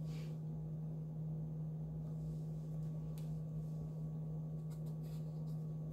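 A steady low hum throughout, with a few faint soft rustles and taps as fabric charm squares are picked up and laid down on a table.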